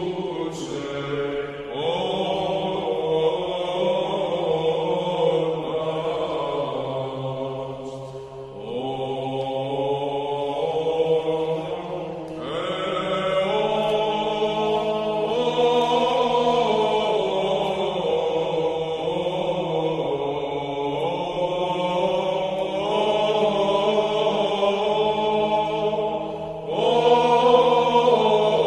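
Background music of chanting: a voice sings slow phrases over a steady low drone note, with short breaks every few seconds.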